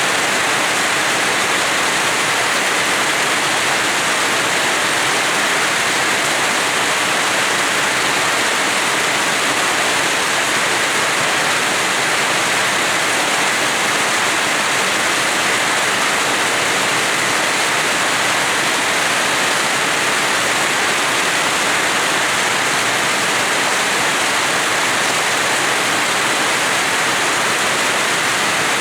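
Steady rain falling in a house yard, an even unbroken hiss of water.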